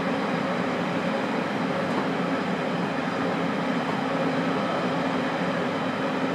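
Interior running noise of a JR Kyushu 817 series 3000 electric train, heard in motor car MoHa 817-3002 with its Hitachi IGBT traction equipment, at a steady speed between stations. A steady rumble of wheels and running gear, with a few steady hum tones that neither rise nor fall.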